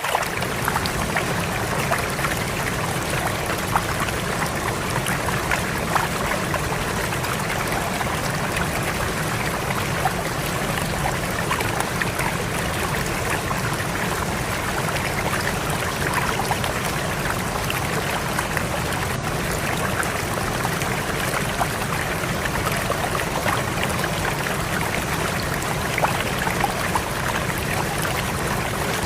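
Fast-flowing river rushing steadily, a dense even wash of water noise with small splashes throughout.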